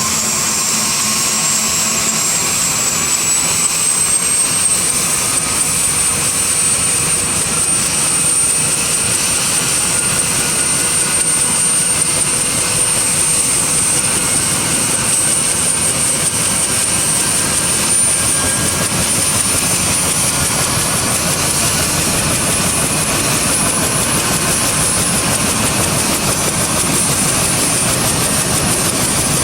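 Bell UH-1 Huey helicopter's Lycoming T53 turboshaft engine running during start-up. A high turbine whine climbs in pitch over the first few seconds and rises slightly again about two-thirds of the way through, over a loud, steady rush of engine noise: the engine is spooling up.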